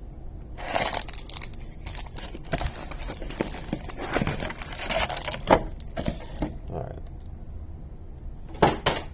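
Foil-wrapped 2021 Topps Series 1 trading-card packs crinkling and rustling as they are pulled from a cardboard hobby box and stacked, with many sharp clicks and a louder burst of handling near the end.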